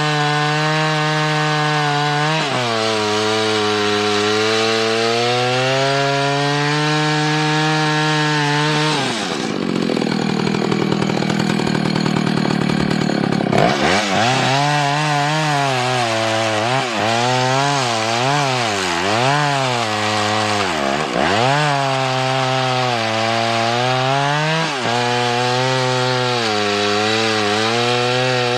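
Vintage Husqvarna chainsaw with a 28-inch Sugihara bar and .404 chain running at full throttle while cutting through a log. The engine pitch sags and recovers repeatedly as the chain loads up in the cut, with a rougher stretch about a third of the way through.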